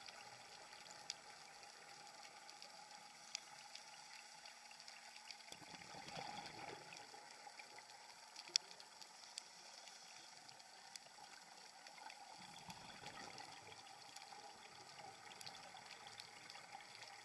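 Faint underwater ambience: a low steady hiss with scattered sharp clicks, one louder click a little past halfway, and two soft swells of rushing noise.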